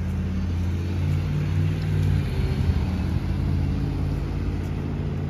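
Motor vehicle engine running on the road next to the yard, a steady low hum that swells a little in the middle.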